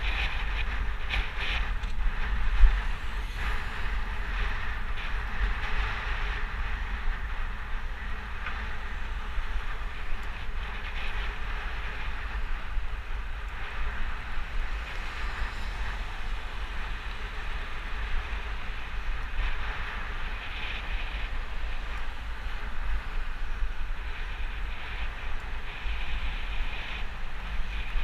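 Wind buffeting the microphone of a camera on a moving bicycle, over steady road noise of tyres and passing traffic, with one sharp knock about two and a half seconds in.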